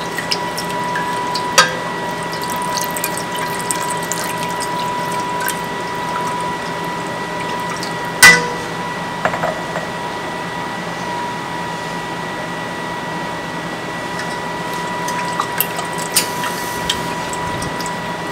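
Chicken stock being whisked into a flour-and-oil roux in a pan, a steady wet stirring and sizzling noise with a few sharp clinks of the whisk against the pan, the loudest about eight seconds in. A steady high hum runs underneath.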